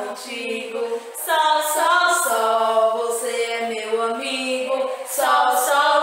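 Two women singing a children's song unaccompanied, in long held notes.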